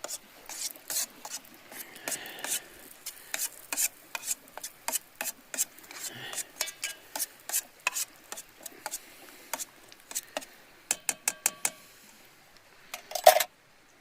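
Utensil scraping and clinking against a metal camp pot: irregular quick clicks and scrapes, a run of rapid ringing taps about eleven seconds in, and one loud clank near the end.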